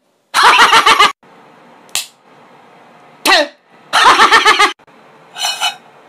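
A man imitating object sounds with his voice: two bursts of rapid, pulsing sound about a second long, with a short falling cry between them. A brief ringing clink comes near the end.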